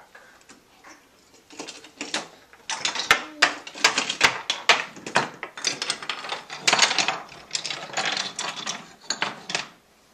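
Toy trains and pieces clattering and knocking on a wooden train-set table's track as a child pushes and handles them: a fast, uneven run of clicks and taps that starts about a second and a half in and stops just before the end.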